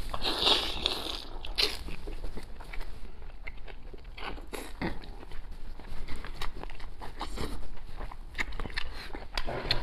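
Close-up eating sounds of a person chewing braised chicken head: wet bites, crunches and sucking at the meat and comb. The sharp crunches and clicks are scattered throughout and are loudest in the first second or so.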